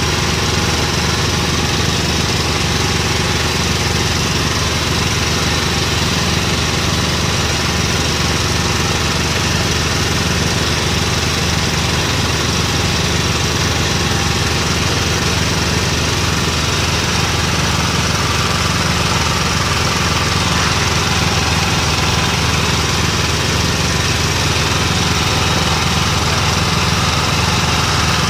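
A small engine running steadily at an unchanging speed.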